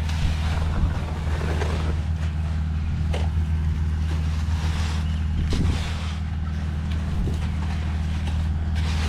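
Concrete mixer truck's diesel engine running steadily with a low hum, with scraping of a straight edge being worked over wet concrete and a few knocks.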